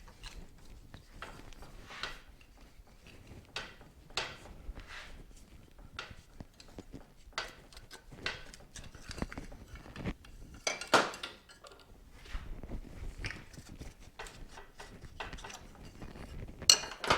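Hand tools and metal motorcycle parts clinking and knocking at irregular intervals, with a louder metallic strike about eleven seconds in and another near the end.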